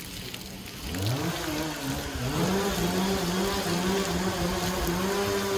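A sawmill machine's motor speeding up: its pitch rises, dips briefly, then climbs again and settles into a steady hum.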